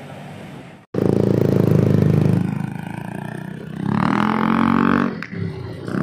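Yamaha NMAX scooter's single-cylinder engine through a Yoshimura slip-on exhaust, revving loudly from about a second in and easing off. It then revs up again with a rising pitch as the scooter pulls away.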